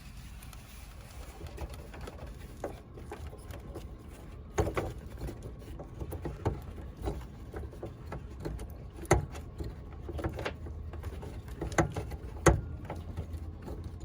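Scattered sharp clicks and knocks of hands working a 9006 LED headlight bulb into the back of a Honda Civic's plastic headlight housing, over a steady low rumble. The loudest knocks come about nine seconds and twelve and a half seconds in.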